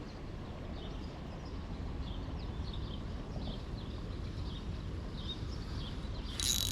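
Steady low outdoor background noise with faint scattered ticks; near the end a Shimano Sedona spinning reel starts cranking, winding in line.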